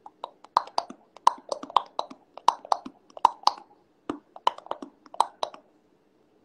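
A quick, loosely rhythmic series of sharp clicks and taps, about four a second, that stops a little before the end.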